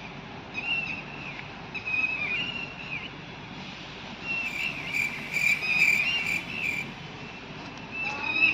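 High-pitched chirping and trilling from small creatures among the trees, coming in repeated bursts and loudest about halfway through, over a steady outdoor hiss.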